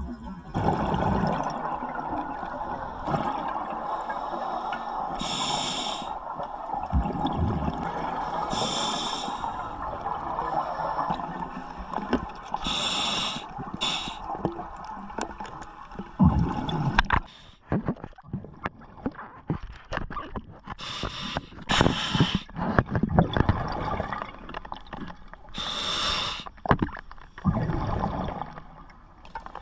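Scuba diver breathing through an open-circuit regulator underwater: long rushes of exhaled bubbles, with short hissing inhalations every few seconds. In the second half the bubbling turns choppy and crackly, with short gaps.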